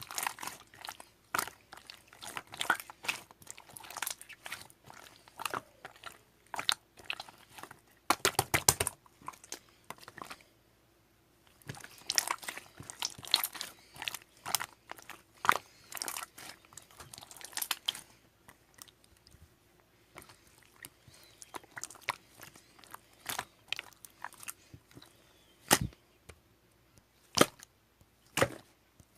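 Close, irregular crunching and clicking in bursts, with two short pauses partway through.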